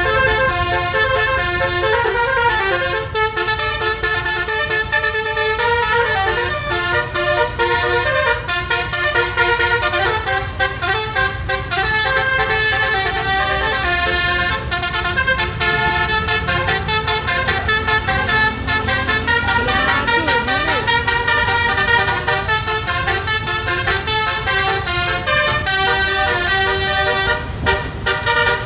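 A bus's twelve-trumpet 'telolet basuri' musical horn playing a tune. It runs as a continuous string of quick stepped notes, several sounding together, over a steady low rumble.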